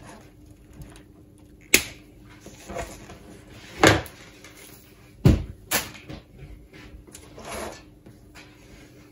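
A handful of sharp clicks and knocks, spaced a second or two apart, from small side cutters snipping computer power-supply wires and being put down on a wooden worktop.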